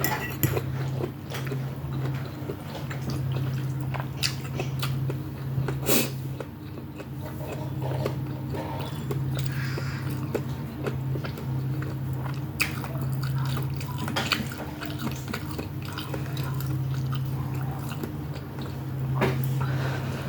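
Close-up chewing and biting of noodles and beef, wet mouth sounds with scattered sharp clicks, over a steady low hum.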